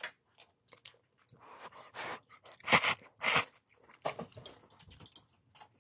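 Someone eating instant ramen noodles: short, irregular chewing and slurping noises, with two louder ones about three seconds in.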